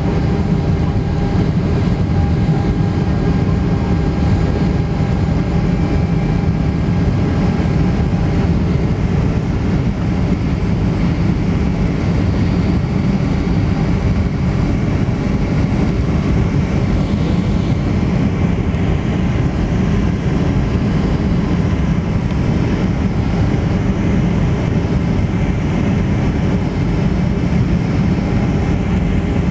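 Steady cabin noise inside a Boeing 737-200 on final approach: its Pratt & Whitney JT8D turbofan engines and rushing air, heavy and deep, with faint steady whining tones above.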